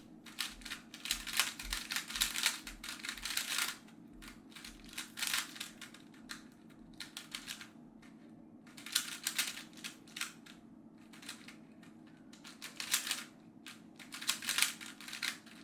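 GAN 356i magnetic speed cube being turned by hand: runs of rapid clicking as the layers snap round, a second or so at a time with short pauses between.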